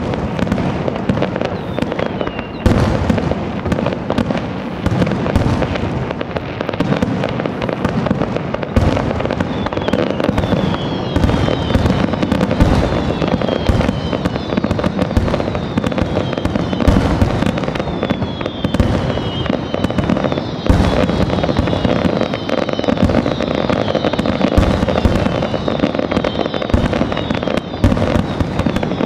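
Dense barrage of aerial firework shells bursting in rapid, unbroken succession, booms and crackle running together. Repeated falling whistles sound over the bursts from about a third of the way in.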